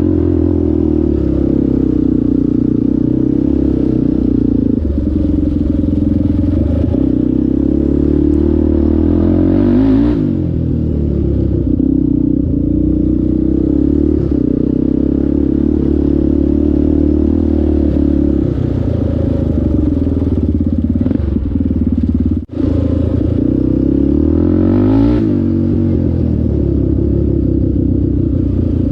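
Several ATV engines running together, loud and steady, their pitch dipping and rising twice as they rev and ease off, with a momentary dropout about two-thirds of the way through.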